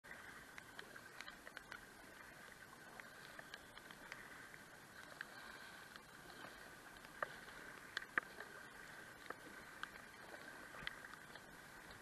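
Faint, steady rush of river water around a kayak, with many small splashes and ticks scattered through it as the paddle is worked.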